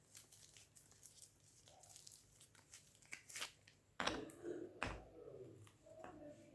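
Soap bar's wrapper being torn open and crinkled by hand: soft scattered rustles and ticks, with two sharper, louder rips about four and five seconds in.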